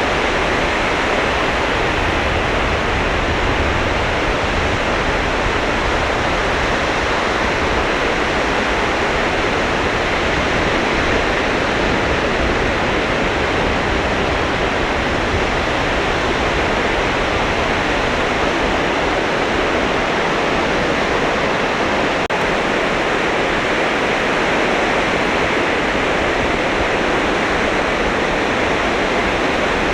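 Sea surf breaking on a beach: a steady, continuous rush of waves with no separate swells standing out.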